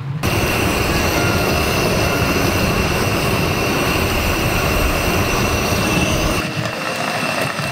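Chicken sizzling inside a hot sandwich toaster, a loud steady hiss of frying and steam that starts abruptly and eases a little about six seconds in.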